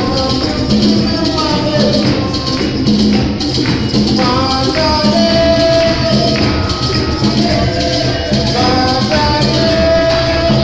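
Live drum ensemble playing a steady, driving rhythm with shaker-like percussion, and a melody of held notes over it.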